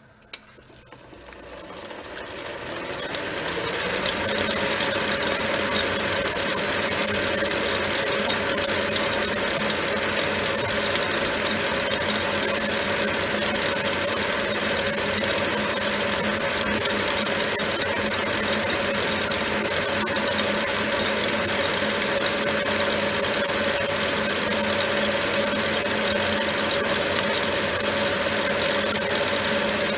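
Metal lathe switched on with a click, its motor winding up over the first few seconds and then running steadily, ready for a thread-cutting pass.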